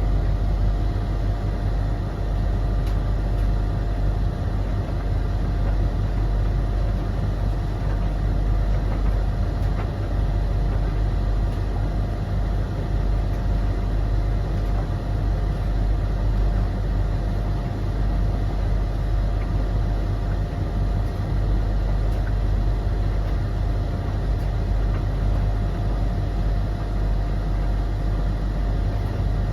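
Three tumble dryers running together mid-cycle: drum motors and fans making a steady hum and whir with a faint constant whine.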